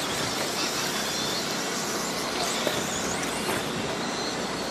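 Radio-controlled late model race cars running on a dirt oval: a steady hiss of motors and tyres on the dirt, with high whines rising and falling as the cars pass.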